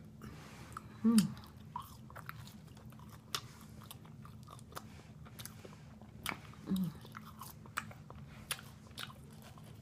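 Close-miked chewing and crunching of crispy fried chicken, with scattered sharp bite and mouth clicks. A short low vocal sound comes about a second in, the loudest thing, and a fainter one near seven seconds.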